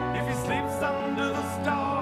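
A slow ballad: a singer holds a long wavering note over sustained instrumental accompaniment.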